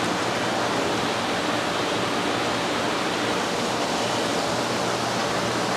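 Steady rush of running water from hoses filling and draining a fish acclimation table, with a faint low hum underneath.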